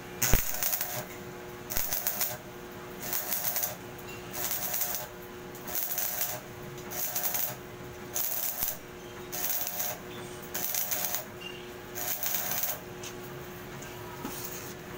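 Stick (shielded metal arc) welding on steel bar: the arc crackles and sizzles in short bursts of under a second, about ten of them, roughly one every second and a quarter, as the electrode is struck and broken off in a run of short stitch welds. A steady hum sounds underneath.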